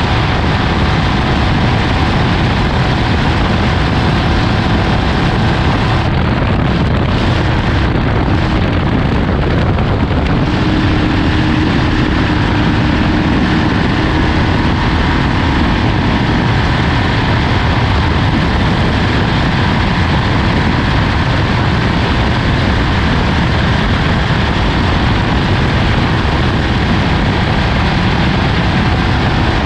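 Off-road race vehicle running under way: a steady, loud, dense vehicle noise.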